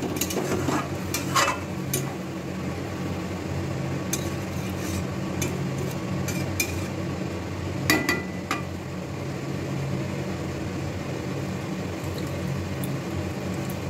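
A spatula stirring pointed gourds in a thin, watery gravy in a steel kadai, with scattered sharp clinks and scrapes against the pan, strongest as a pair about eight seconds in, over a steady low hum.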